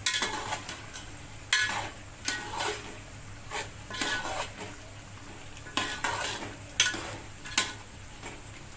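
Metal ladle stirring chicken and yogurt masala in a metal cooking pot, scraping and clinking against the pot's sides in irregular strokes with a brief metallic ring, over a low steady sizzle of the cooking mixture. The stirring stops near the end.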